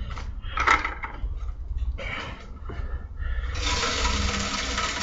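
Wet concrete mix pouring out of a tipped plastic bucket into a steel foundry box, a steady rushing slosh that starts about three and a half seconds in. Before it, a few knocks as the bucket is lifted.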